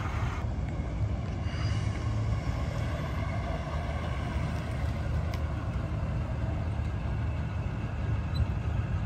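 1952 Ford Crestline's engine idling steadily with a low exhaust rumble.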